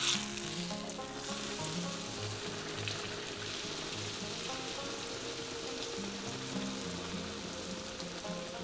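Fry bread dough frying in hot vegetable oil in a frying pan: a steady sizzle with light crackles. Quiet background music plays underneath.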